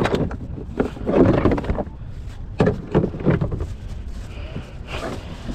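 Irregular knocks and scrapes of fishing gear being handled aboard a kayak.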